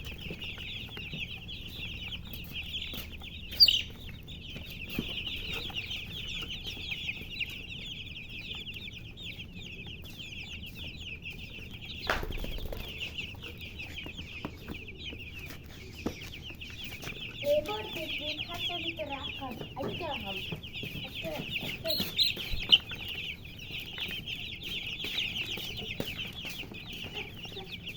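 A brood of baby chicks peeping continuously, many high chirps overlapping into a dense chorus, with a few brief knocks and some lower calls partway through.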